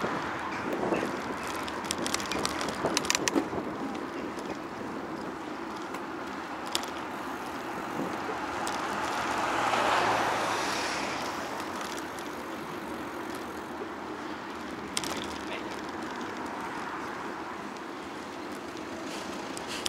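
Road noise heard from a bicycle in town traffic: a steady rush of tyre and wind noise, with a car passing, louder about halfway through and then fading. Scattered sharp clicks and rattles come in the first few seconds, with a few more later.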